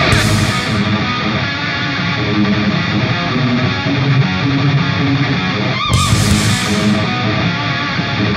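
Background rock music led by guitar.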